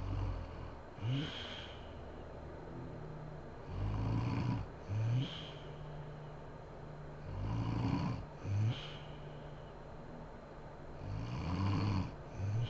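A sleeping woman snoring in a regular rhythm, about four breaths: each a drawn-out snore followed about a second later by a short, sharp snore, repeating roughly every three and a half seconds.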